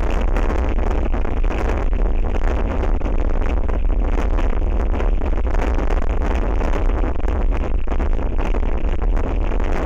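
Strong wind buffeting the outdoor camera's microphone: a loud, steady, deep rumble with rushing noise and no let-up.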